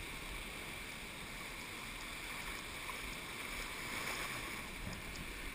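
Steady rushing of whitewater as a paddle raft runs a rapid on the Colorado River.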